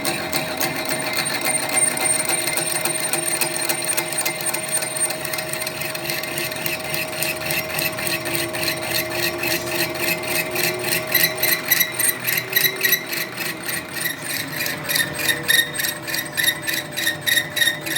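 Machine tool running with a fast, even mechanical clatter of about five strokes a second over a steady hum, the strokes growing louder about two-thirds of the way through.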